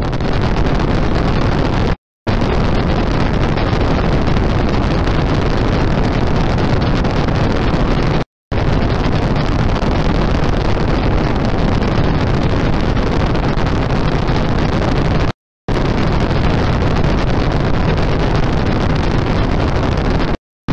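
A loud, unbroken wall of harsh static noise with no tones or rhythm in it. It stops dead for a fraction of a second three times, as edited cuts, and again at the end.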